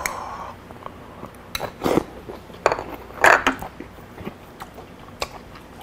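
Metal chopsticks and spoon tapping and clicking against small ceramic side dishes, a scattering of short sharp clicks, with chewing and mouth sounds from eating.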